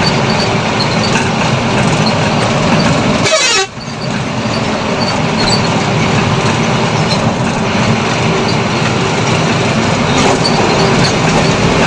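Steady engine and road noise of a truck driving on a highway, heard from inside the cab, with a short falling swoosh and a brief drop in level about three and a half seconds in.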